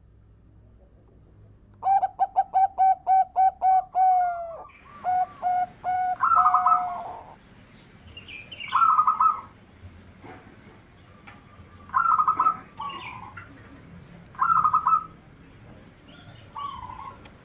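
Zebra dove (perkutut) singing: a quick string of short staccato coos about two seconds in, then several louder warbling coo phrases repeated every two to three seconds.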